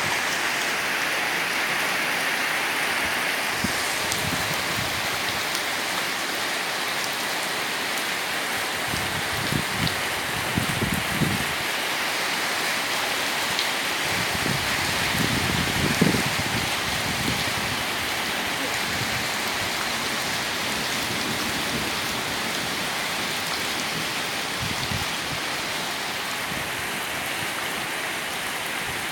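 Heavy rain falling steadily, a continuous hiss, with a few brief low rumbles about ten seconds in and again around sixteen seconds.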